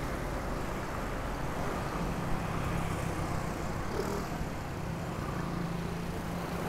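Steady city road-traffic noise heard from a bicycle riding in traffic, with a low engine hum from a nearby vehicle joining about two seconds in.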